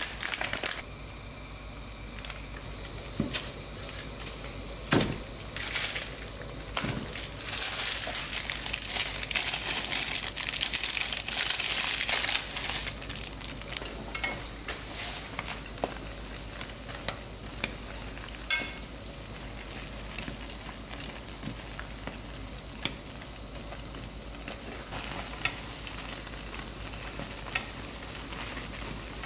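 Water at a rolling boil in a pan, with a few sharp knocks in the first seven seconds as instant noodle blocks go in. A louder rush of bubbling follows for several seconds, then a steadier simmer with small clicks as chopsticks stir and lift the noodles near the end.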